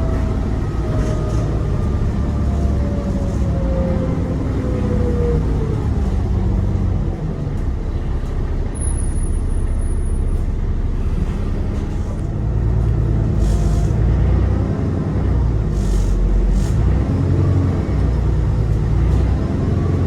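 ADL Enviro 400 E40D double-decker bus running, its turbo whine falling in pitch over the first few seconds as it slows. A low engine rumble follows, and the whine rises again near the end.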